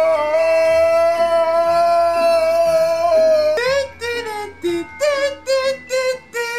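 A young man's exaggerated comic wailing: one long cry held on a single pitch for about three and a half seconds, then a string of about five short, sharply rising cries with pauses between them.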